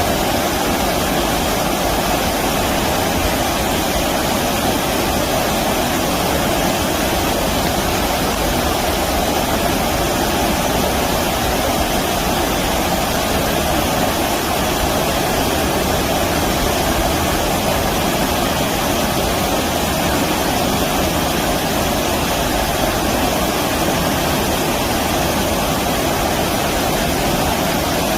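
Stream water rushing and splashing over rocks, a constant even noise that neither rises nor falls.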